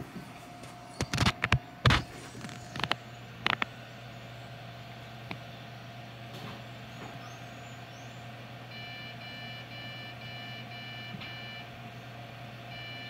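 Desktop PC running with a steady fan hum and a few sharp handling knocks near the start. About two-thirds of the way through, a run of short, evenly spaced electronic beeps begins.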